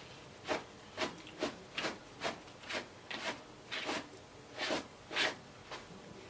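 A run of short rubbing strokes, roughly two a second, about a dozen in all, with the loudest two a little past the middle.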